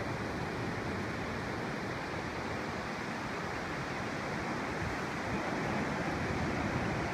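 Ocean surf breaking offshore, a steady rushing noise that swells slightly near the end.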